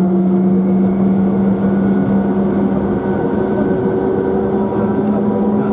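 Electric trolleybus of the Tateyama Tunnel Trolleybus line running through the tunnel, heard from inside the cabin: a steady motor hum and whine over a constant rush of tyre and running noise.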